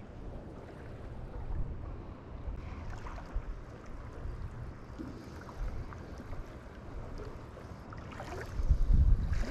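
Low wind rumble on the microphone, growing stronger near the end, with a few faint clicks from a spinning reel being handled.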